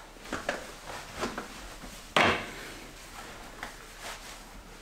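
Handling noises: a scatter of light clicks and knocks, with one sharper, louder knock about two seconds in.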